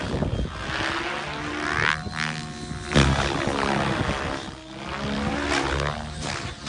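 Radio-controlled helicopter flying overhead: the whine of its main rotor and motor sweeps up and down in pitch as it manoeuvres, with a louder surge about three seconds in.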